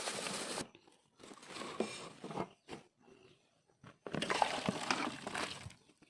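Irregular crunching of food, a burst at the start, a few short crunches with quiet gaps, then a longer run of crunching about four seconds in.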